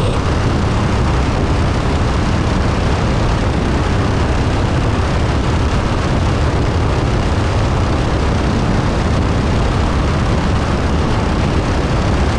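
DHC-6 Twin Otter's twin turboprop engines running with a steady, loud rush of wind.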